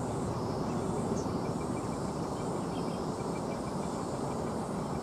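Steady low rumble and hiss of distant airport ground noise, with faint, fast, evenly spaced ticking high above it.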